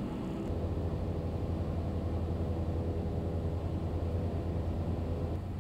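Cessna 172's piston engine and propeller droning steadily on final approach, a low throbbing hum over rushing air. The low hum comes in about half a second in and eases near the end.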